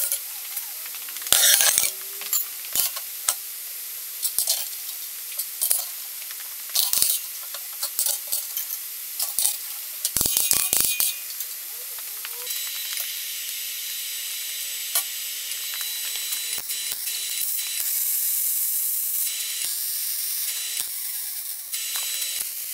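Sharp clanks and knocks of steel pieces and clamps being set on a steel welding table, then from about halfway a steady sizzling hiss of arc welding on steel box section that grows louder near the end.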